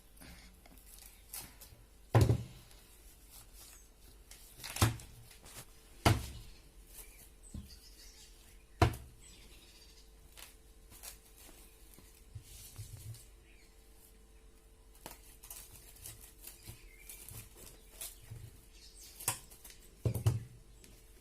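Kitchen handling sounds: several sharp knocks, the loudest about two seconds in and near nine seconds, with faint small clatter and rustle between, as small containers of harissa are handled and covered with plastic film.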